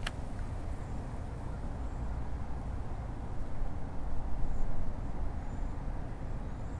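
Wind rumbling on the microphone while a baitcasting reel is retrieved, with one sharp click at the start as the reel engages after the cast. A few faint, short high chirps come and go.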